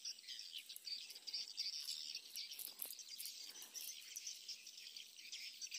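Steady, dense high-pitched chorus of insects chirring, with scattered short high ticks or chirps over it.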